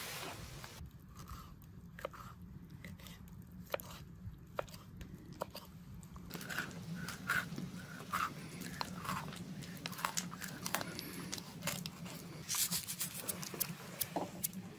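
Chewing and crunching: an irregular run of small sharp crunches, denser and louder in the second half, over a steady low hum.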